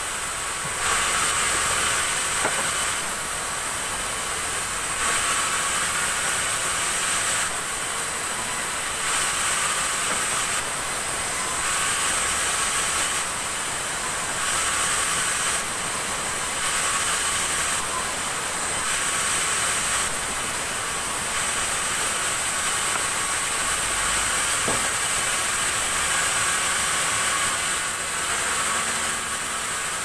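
Sawmill band saw cutting black acacia wood: a steady high whine from the running blade, with a rasping cutting sound that swells and drops back about every one to two seconds as the wood is pushed through.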